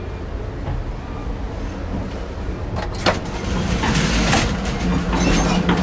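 Moving Amtrak Superliner passenger train heard from inside: a steady low rumble of the train running, with rattles and clanks that grow louder about halfway through.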